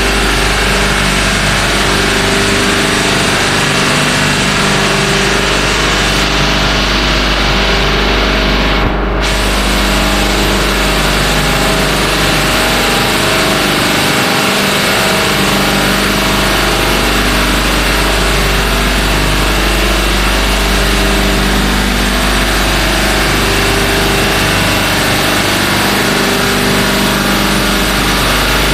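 Compressor running steadily and loudly, a constant hum with a strong low rumble and machine noise, with the unit vibrating.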